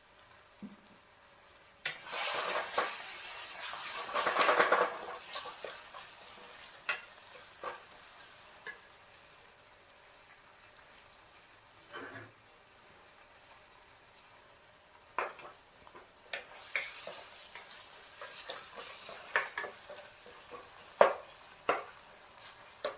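Onion-tomato masala frying in hot oil in a pan, with a loud burst of sizzling about two seconds in that dies down and swells again about two-thirds of the way through. A spoon clicks and scrapes against the pan as the masala is stirred.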